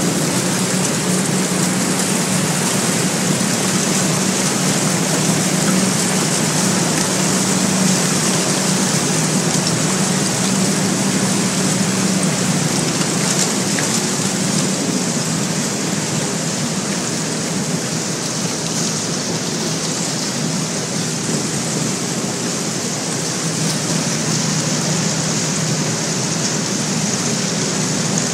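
Boat hull breaking through river ice and shoving broken ice slabs aside: a steady, dense rushing noise of ice and water. Under it is the boat's engine as a steady low drone, which weakens past the middle and comes back near the end.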